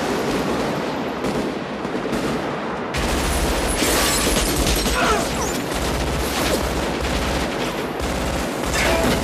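Sustained automatic rifle fire, shots overlapping into a dense continuous volley that grows heavier about three seconds in.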